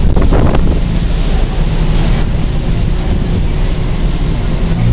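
Wind buffeting the microphone over the steady low drone of a harbour shuttle boat's engine and the rush of water past the hull.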